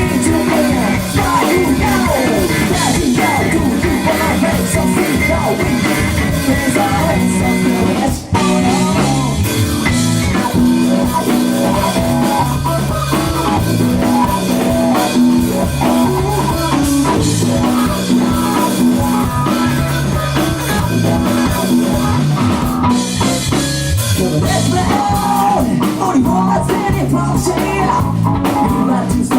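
Live band playing a funk-style rock number on electric guitar, bass and drum kit, with a short break about eight seconds in.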